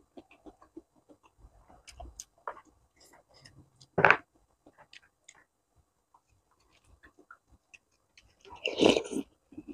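Close-miked mukbang eating sounds: small clicks of a spoon and chopsticks in a bowl of meatball soup and soft mouth noises, a short sharp knock about four seconds in, then a loud slurp of noodles near the end.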